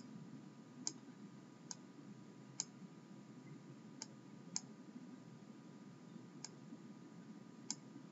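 Computer mouse clicking, about eight short, sharp clicks at irregular intervals, over a faint steady low hum.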